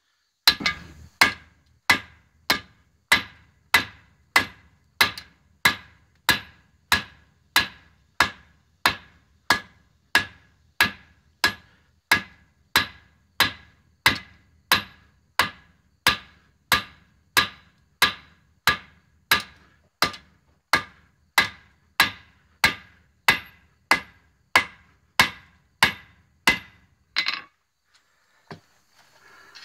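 Blacksmith's hand hammer striking red-hot high-carbon steel on an anvil, forging an adze from an old hammer. The blows come at a steady pace, about three every two seconds, each with a short metallic ring, and stop a couple of seconds before the end.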